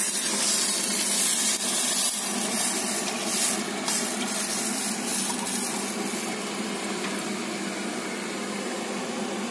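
Meat broth poured from a glass bowl into a hot pot of fried vegetables and tomato paste: a steady splashing, hissing pour that grows quieter toward the end.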